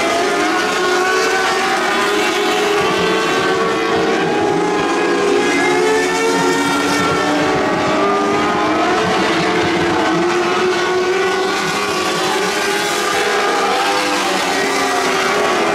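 Several lightning sprint cars racing on a dirt oval, their engines running hard at once. The engine notes rise and fall as the cars lift for the turns and accelerate down the straights.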